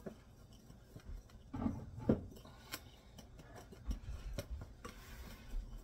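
Small wire whisk stirring a dry spice rub in a ceramic bowl: soft scraping with small clicks of the wires against the bowl, and one short louder sound about two seconds in.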